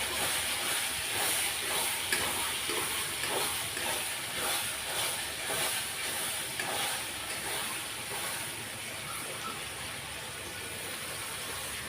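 Onion and spice masala with a little water sizzling in a hot kadhai, with a spatula stirring through it for the first several seconds. After that it settles into a steady, quieter hiss.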